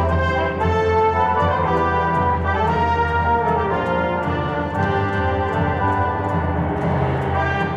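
Orchestral music led by brass, with long held chords.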